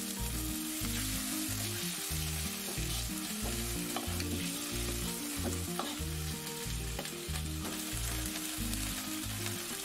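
Rice vinegar and wine sizzling in hot oil in a wok around a whole fish, with a few sharp clicks of a metal ladle against the wok.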